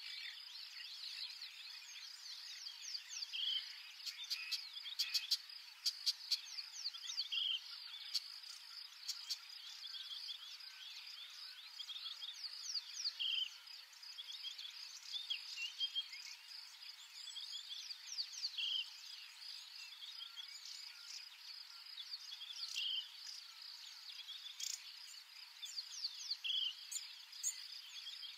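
Outdoor chorus of insects trilling steadily, overlaid with many quick, high chirps and a short call that repeats every few seconds.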